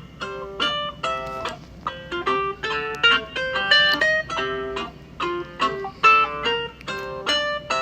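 Phone alarm tone playing a quick, repeating melody of plucked, guitar-like notes, about three or four a second.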